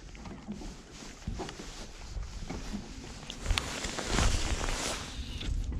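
Wind buffeting the microphone, with a few small sharp clicks and knocks and a louder gust of rushing noise about four seconds in.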